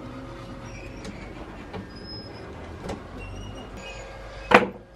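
Small clicks and taps of a screwdriver working on the yacht's removable cockpit seat box, over a steady low hum, then one sharp knock near the end.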